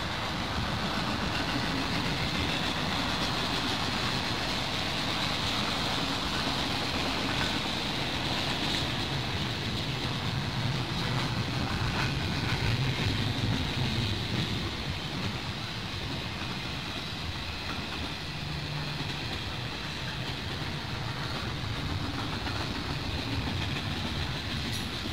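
Freight train cars rolling past: a steady rumble and rattle of steel wheels on rail, with a few faint clicks.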